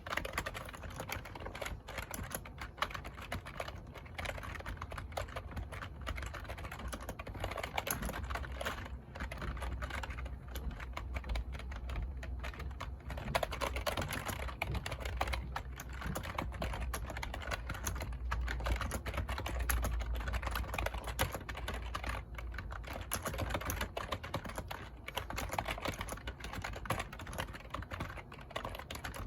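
Computer keyboard being typed on continuously and fast, a dense run of key clicks with no pauses.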